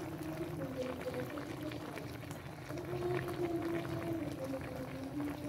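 Paksiw na tilapia simmering in a wok, with faint bubbling and crackling from the broth, under a slow, wavering sustained tone that bends gently in pitch.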